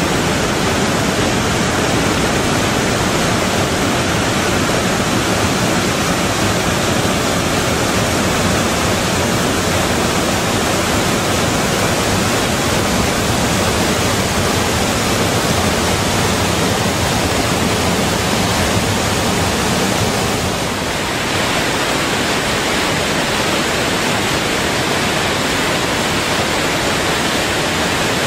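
Whitewater of the Morkill River Falls rushing over rock, a loud, steady rush of falling water that dips briefly about 21 seconds in.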